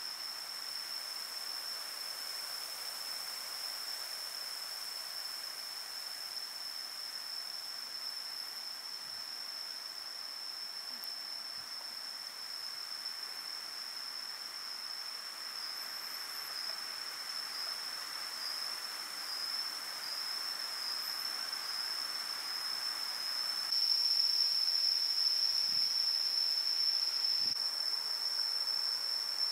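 Insects singing in a forest: one steady, unbroken high-pitched drone over a soft hiss of ambience, a little louder near the end.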